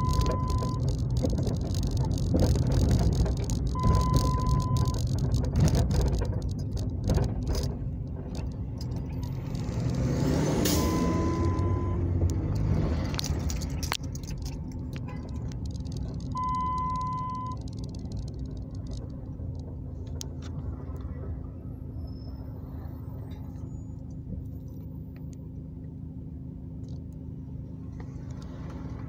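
Car driving in slow traffic, heard from inside the cabin: a steady low road and engine rumble, with an engine speeding up about ten seconds in. The rumble settles quieter in the second half. Four short, high electronic beeps come at uneven intervals through the first half.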